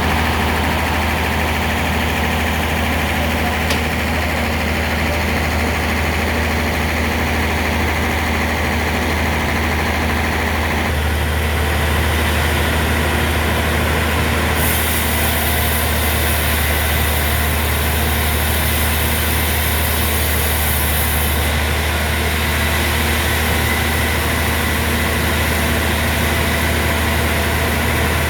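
Sawmill machinery running with a steady, loud low hum, stepping up a little about eleven seconds in.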